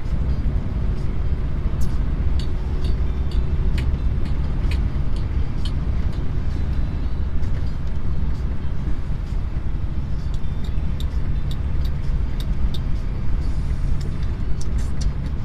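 Steady low drone of a truck's engine heard from inside the cab, with faint, irregular light ticks scattered over it.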